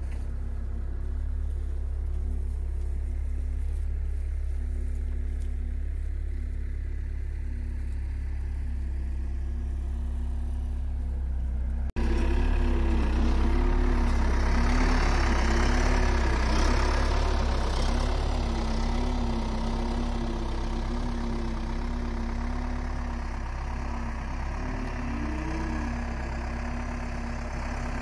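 Case 430 skid steer loader's diesel engine running, steady at first. After a cut about twelve seconds in it is louder and closer, its pitch rising and falling as the throttle changes.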